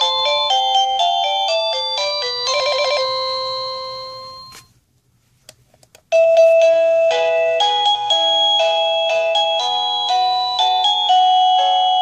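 SadoTech wireless doorbell receiver playing electronic chime melodies. One tune ends with a quick trill and a held note that fades out about four and a half seconds in. After a short pause, a different tune starts.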